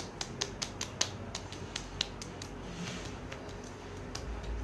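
Fingertips quickly tapping on the skin of the face and neck, patting sprayed toner in: a rapid run of light, sharp taps, about five a second, that thins out to a few scattered taps after about two seconds.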